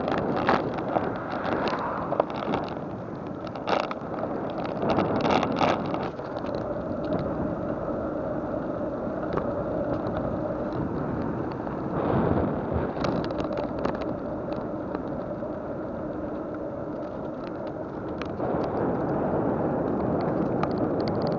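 Road and wind noise from a vehicle moving along a road, with a faint steady hum through the middle stretch and scattered rattling clicks.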